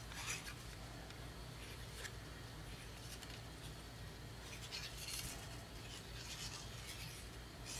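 Cardstock paper being handled while glue is run along the back of a cut paper piece from a squeeze bottle: a few faint, short rustles and rubs over a steady low hum.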